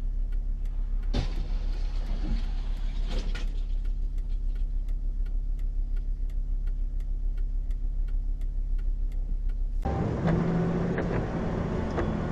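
Steady low drone of a car on the move, with a regular sharp ticking about three times a second. About ten seconds in, the sound switches abruptly to a louder, rougher engine and road noise.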